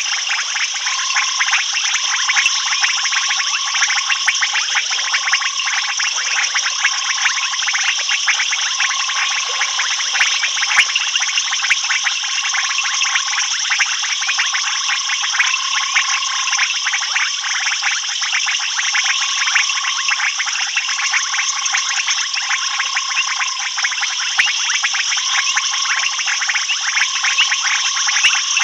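Dense night chorus of insects and frogs: a continuous shrill, rapidly pulsing trill, with a short, lower piping note repeating every second or two.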